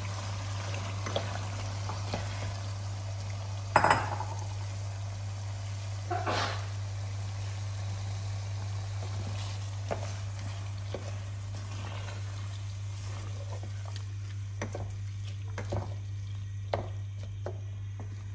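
A wooden spoon stirring boiled chickpeas into masala gravy in a cooking pot, with scattered knocks and scrapes against the pot. The two loudest knocks come about four and six seconds in.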